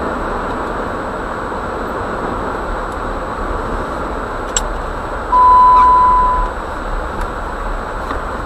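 Steady road and engine noise inside a vehicle driving on a snow-covered street. About five seconds in, a single steady electronic beep sounds for just over a second.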